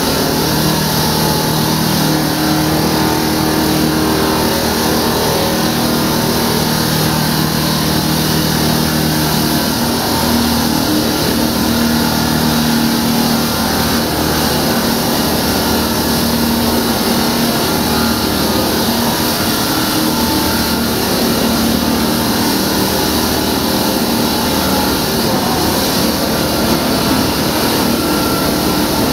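Engine-driven concrete-cutting equipment running steadily under load: a constant loud grinding hiss over an engine drone whose pitch shifts slightly about a third of the way in.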